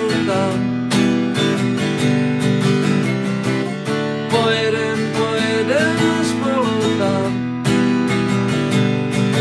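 Acoustic guitar strummed in a steady rhythm, chords ringing under regular strokes, as an instrumental break of a song.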